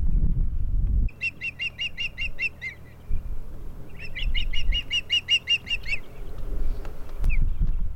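Osprey calling: two runs of rapid, high whistled chirps at about six notes a second, the first about a second in and the second starting around the middle, with a pause between. A low rumble fills the first second.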